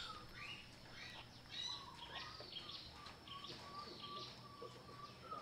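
Faint, repeated high chirping calls, short and often falling in pitch, with a thin, steady, whistle-like tone underneath in the second half.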